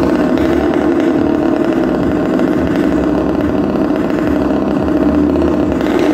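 Motorcycle engine running at steady revs, held at an even pitch, as the bike rides around the vertical wooden wall of a wall-of-death drum.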